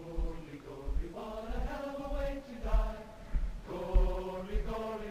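Background music: a choir singing long held notes that change pitch every second or so, over deep low thumps.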